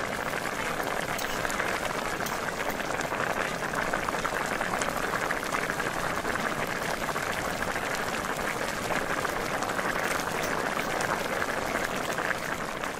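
Kangkong (water spinach) cooking in a wok of oyster sauce, the sauce bubbling and sizzling steadily with fine crackles.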